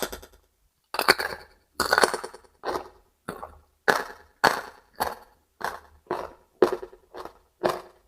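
A crisp bite into a raw vegetable, then steady crunchy chewing of about two crunches a second.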